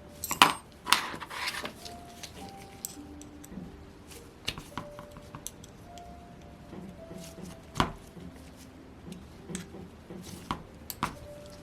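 Scattered clicks and clacks of small metal tools and parts handled on a workbench while a Saito FA-100T model engine's rear cover is being taken off. There is a quick cluster of sharp clacks in the first second and a half, then single ones about eight seconds in and near the end.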